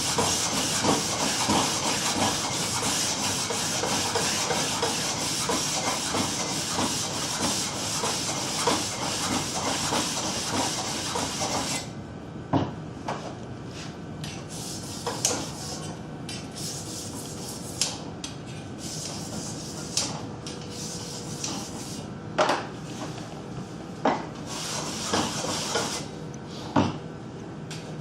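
The smooth side of a sharpening stone rubbed back and forth along speed skate blades clamped in a jig: a steady rasping grind for about the first twelve seconds, which stops abruptly. After that come scattered sharp clicks and knocks over quieter noise.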